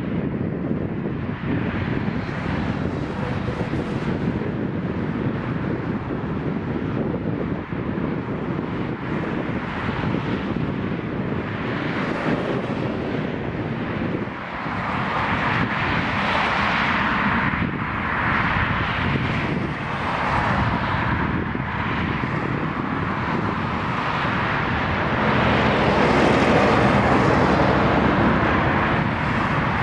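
Boeing 777-200ER airliner's jet engines on landing approach: a steady rushing engine noise that grows louder about halfway through and again near the end.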